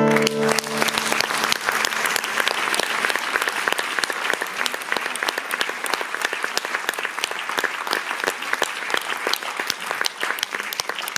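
Audience applauding at the end of an acoustic song: dense clapping that starts as the last guitar chord cuts off, easing gradually toward the end.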